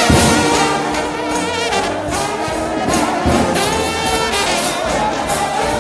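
Trombone shout band playing gospel music: a choir of brass holding sustained chords with a wide, wavering vibrato over drum beats.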